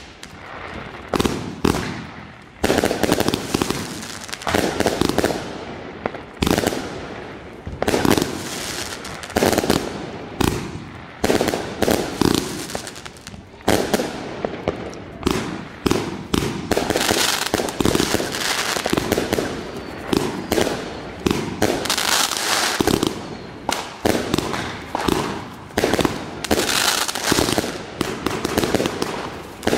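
Vuurwerkmania Tournament Box firework battery firing, a rapid run of launch thumps and bursts with crackling stars, shot after shot with only brief gaps.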